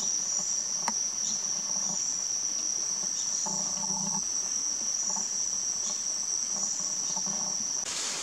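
Forest insects, cricket-like, keep up a steady, unbroken high-pitched trill. It cuts off abruptly near the end.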